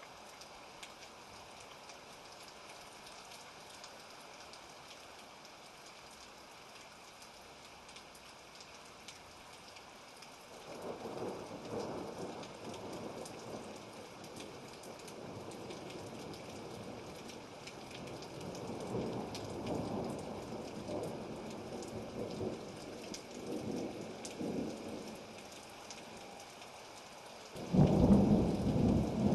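Thunderstorm: steady rain, with thunder rolling in from about ten seconds in and rumbling on and off, then a loud clap of thunder near the end.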